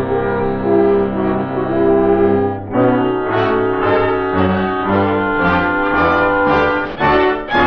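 Orchestral music led by brass: a long held chord for nearly three seconds, then a passage of shorter, separate notes.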